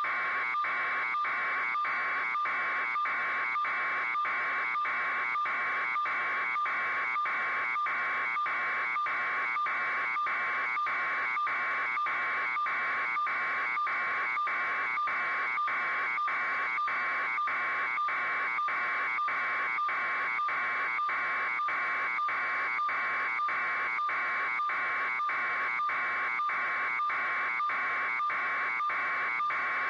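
A steady, loud electronic buzz, pulsing evenly about twice a second.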